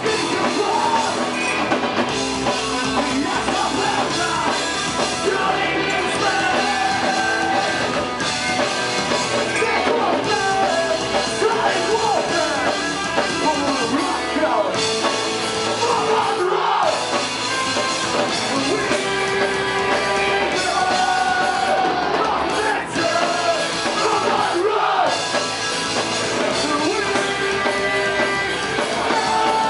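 Post-hardcore band playing live, with distorted electric guitars, drum kit and shouted and sung vocals.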